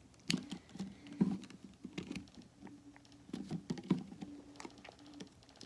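Irregular clicking and tapping of fingers and nails on a plastic slime container and its seal during a struggle to get it open.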